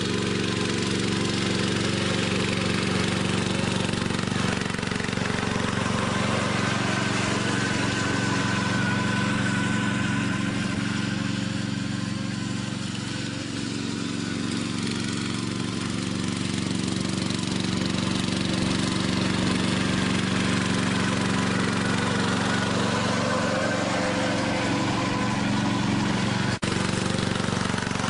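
Ride-on lawn tractor engine running steadily while towing a paddock scooper over grass, with one very brief break in the sound near the end.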